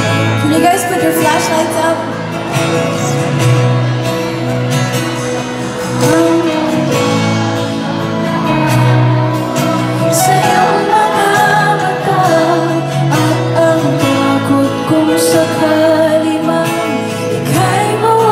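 A woman singing a ballad in Tagalog live, with a band of acoustic guitars and drums, played loud through the stage sound system.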